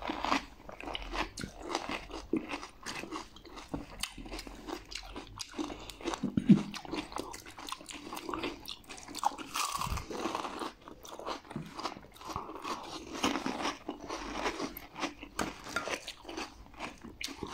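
Pani puri being eaten: crisp, hollow puri shells filled with spiced water cracking and crunching between the teeth, with chewing, as a steady run of many small sharp crunches.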